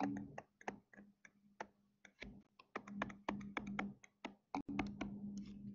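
A stylus tapping and clicking on a tablet or touchscreen while handwriting: many short, sharp, irregular taps, thickest in the second half, over a faint steady low hum.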